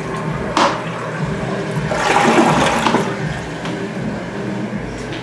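Toilet flushing: a rush of water that starts sharply, is loudest about two to three seconds in, then eases off but keeps running.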